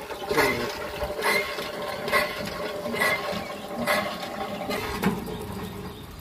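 Hand pump being worked to draw water, with a mechanical clank on each stroke of the handle, about once a second, stopping about five seconds in.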